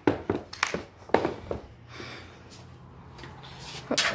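Scattered knocks and bumps from handling: a plush toy and a handheld camera being knocked about. There are several sharp knocks in the first second and a half and two more close together near the end, over a faint low hum.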